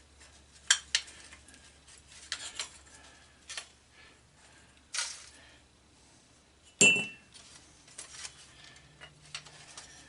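Small scrap metal pieces clinking and clanking as they are handled and worked with pliers, with one loud ringing metal clank about seven seconds in.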